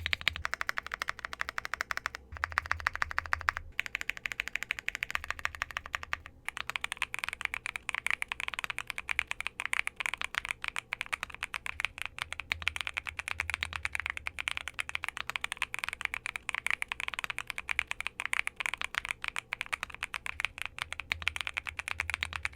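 Typing on a Monsgeek M1 V3, a gasket-mounted aluminium 75% mechanical keyboard fitted with Akko Creamy Purple Pro switches: fast keystrokes, in short bursts with brief pauses at first, then an unbroken run of quick typing from about six seconds in.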